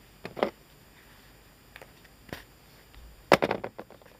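Leather being handled and worked by hand during hand stitching: a few short scraping rustles, the loudest a quick cluster of several near the end.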